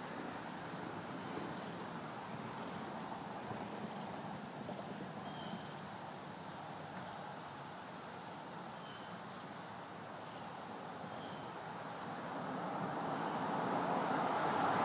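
Roadside outdoor ambience: a steady background hiss with insects chirping and a few faint short chirps. A vehicle approaches over the last few seconds, growing louder.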